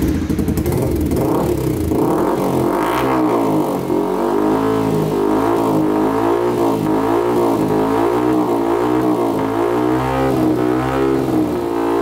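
Yamaha R15 V3's 155 cc single-cylinder engine running through a replica M4 slip-on exhaust, first held near idle, then revved up and down over and over in quick throttle blips, with the revs dropping back near the end.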